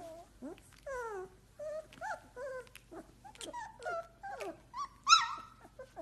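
Very young puppies whimpering and squeaking in a run of short, high calls, many sliding down in pitch, with one louder squeal about five seconds in.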